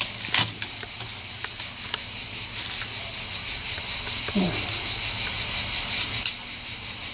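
A steady, high-pitched chorus of cicadas, with a few faint clicks.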